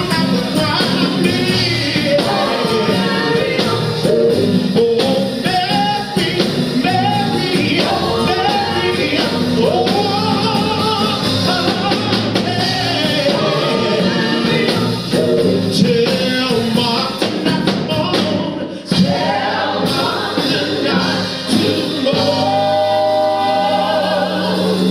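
Gospel choir singing live over a steady band accompaniment. The music drops briefly a little past the middle, then the voices hold a long chord near the end.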